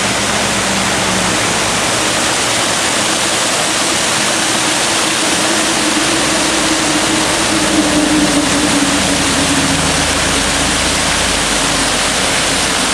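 Millpond waterfall: water pouring steadily over a stone dam spillway, a loud even rush. A faint low hum swells and fades about halfway through.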